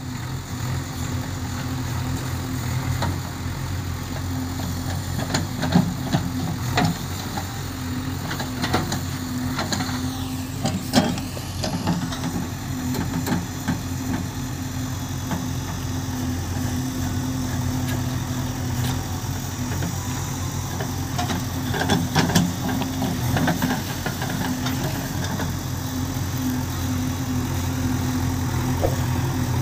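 JCB 3DX backhoe loader's diesel engine running steadily while the backhoe digs, with scattered short knocks through it, loudest around 6, 11 and 22 seconds in.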